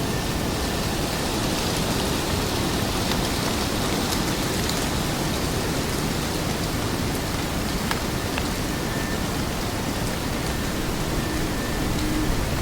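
Autumn forest ambience: a steady rushing hiss with scattered faint ticks, and a faint thin high tone now and then in the second half.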